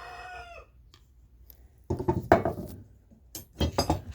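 Iron blacksmith's tongs clanking and clinking as they are handled and set down, in two short bouts, about two seconds in and near the end. A rooster's crow trails off in the first half second.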